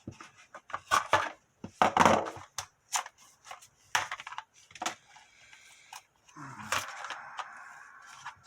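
Plastic and card retail packaging being forced open, crackling and snapping in sharp bursts about once a second. A steadier scraping rub follows for about two seconds near the end.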